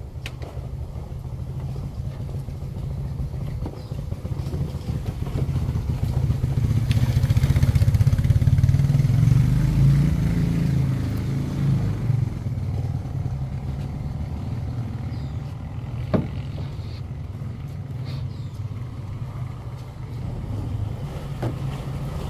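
A motor vehicle engine running with a steady low hum that swells louder from about seven seconds in and eases off after about eleven seconds. A single sharp knock about sixteen seconds in.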